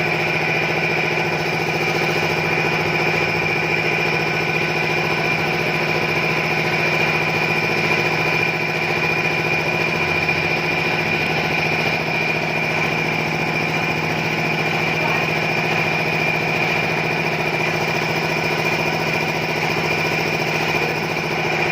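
A motor running at a steady speed, giving a constant, even hum with a high whining tone over it.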